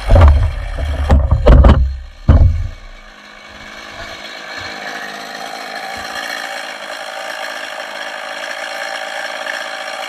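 Echo CS-280TES two-stroke chainsaw idling steadily. Heavy knocks and bumps come in the first two and a half seconds.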